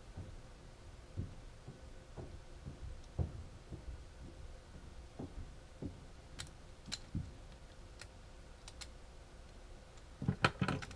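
Faint, irregular clicks and light knocks of small metal washers, bearings and tweezers against a 3D-printed plastic idler being assembled by hand, with a quick cluster of sharper clicks near the end.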